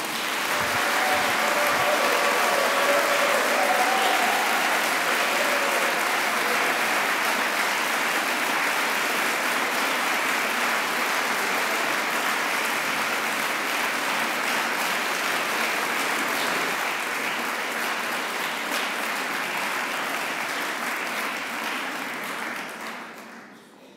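Large seated audience applauding steadily, fading away near the end.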